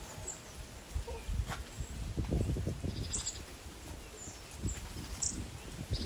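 Outdoor forest ambience: a few short, high bird chirps about three seconds in and again near the end, over irregular low bumps and rumble.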